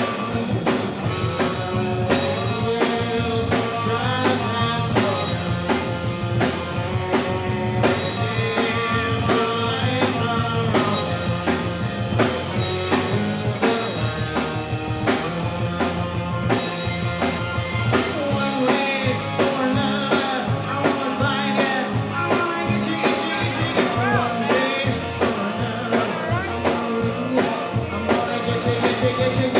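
Live rock band playing with a driving drum-kit beat, electric guitar, bass guitar and keyboard under a lead vocal.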